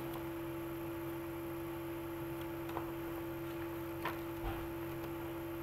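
Steady electrical mains hum with a few faint ticks from the CD booklet being handled.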